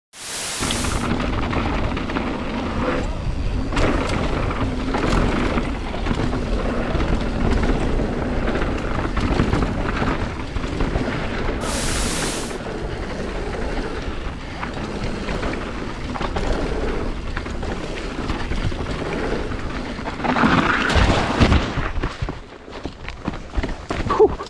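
Wind rushing over a camera microphone while riding a mountain bike down a trail, with a steady low rumble and the rattle and knocks of the bike over rough ground.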